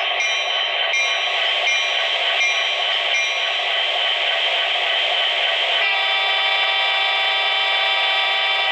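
The sound system of an MTH EMD SD70ACe model locomotive, standing still: its simulated diesel engine runs steadily through a small speaker. The bell dings about once every 0.7 s for the first three seconds or so. From about six seconds in, the horn sounds one long chord.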